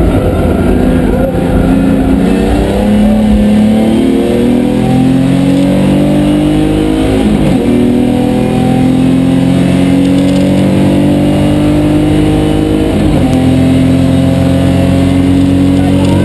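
BMW 325 race car's straight-six engine pulling hard under acceleration, heard from inside the stripped cabin. Its pitch climbs steadily, drops sharply at two upshifts about seven and a half and thirteen seconds in, and climbs again after each.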